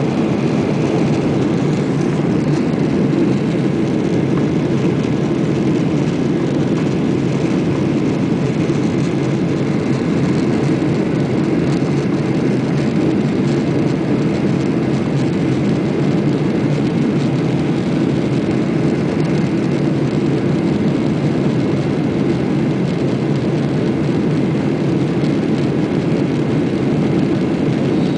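Boeing 737-800 jet airliner's CFM56-7B turbofan engines and airflow during takeoff, a steady, even roar that neither rises nor falls.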